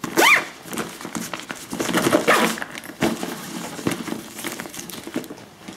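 Zip on a nylon bag pulled shut in quick strokes, with the fabric rustling and crinkling as the bag is handled.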